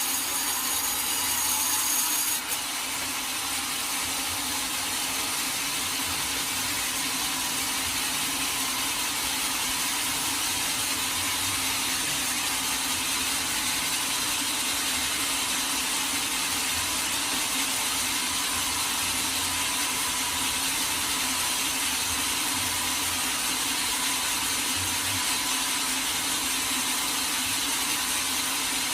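Sawmill blade cutting steadily through teak wood, an even running noise. A thin high whine drops out about two and a half seconds in.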